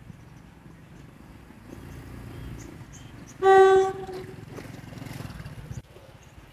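Horn of an approaching diesel passenger train sounding one short blast about three and a half seconds in, a single steady note, over the low rumble of the train on the track.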